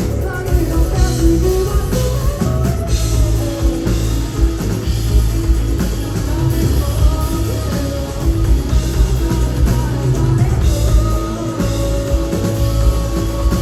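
Rock band playing live: drums, bass and guitar with a sung melody line, loud and steady throughout.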